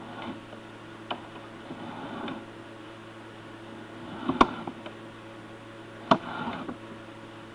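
Handling noise from a sewer inspection camera rig as its push cable is fed down the pipe: a steady electrical hum with scattered clicks and knocks, the two loudest about four and a half and six seconds in.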